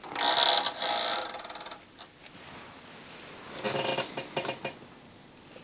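Sony RCD-W100 CD drive mechanism trying to start a disc: a whirring burst of about a second and a half as the spindle motor spins the disc up, then a shorter burst of rapid mechanical ticking near four seconds in. The drive then comes back with nothing, so the disc is not read.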